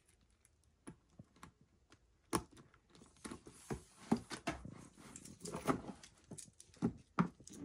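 Irregular small metallic clicks and clinks as the clasps of a gold chain strap are clipped onto a leather handbag and the chain links are handled, with some handling rustle about three to four seconds in.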